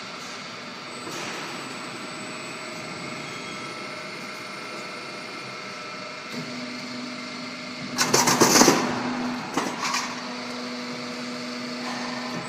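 Corrugated roof-sheet roll forming machine running steadily as the sheet feeds through its roller stands. A low steady hum joins about six seconds in. About eight seconds in there is a loud harsh burst of under a second, followed by a shorter one a second or so later.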